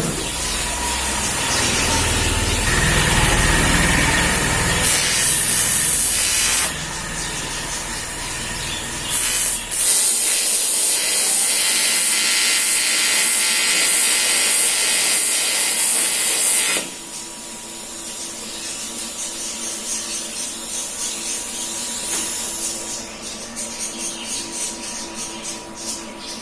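TIG welding arc on aluminium, a loud hissing crackle in long runs that start and stop abruptly as the arc is struck and broken. A quieter stretch with faint rapid ticking follows near the end.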